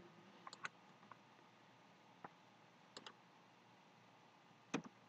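Faint, scattered clicks of computer input (mouse buttons and keys), a handful spread unevenly, some in quick pairs, in near silence.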